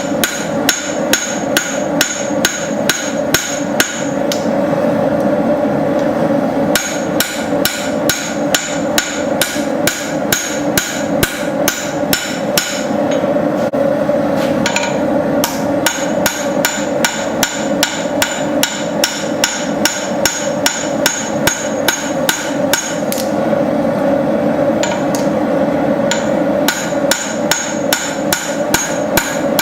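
Blacksmith's hammer striking hot steel on an anvil in a steady rhythm of about three blows a second, drawing out the bevel and thinning the edge of a knife blade. Each blow rings sharply; two stretches of softer, duller blows come about 4 and 13 seconds in.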